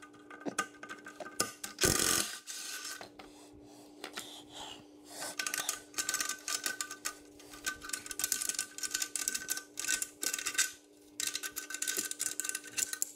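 Hand ratchet clicking in quick runs while loosening exhaust resonator bolts, with one louder knock about two seconds in, over a faint steady hum.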